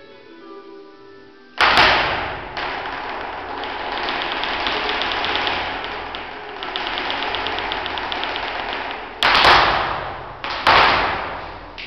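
Flamenco dancer's footwork (zapateado): a hard stamp about a second and a half in starts a fast, dense run of heel and toe strikes lasting several seconds, then a few single loud stamps near the end.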